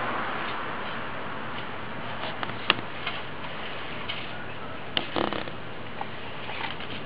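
Steady background hiss with a few scattered sharp clicks: a single loud click about two and a half seconds in, and a short cluster of clicks about five seconds in.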